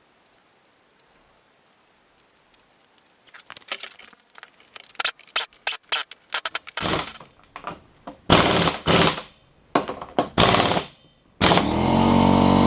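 Clattering clicks and knocks, then several loud short bursts a second or so apart, then a small engine catching and settling into a steady run near the end.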